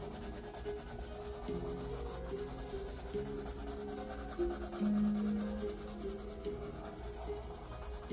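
A colored pencil rubbing back and forth on drawing paper as it shades, under background music of long held notes.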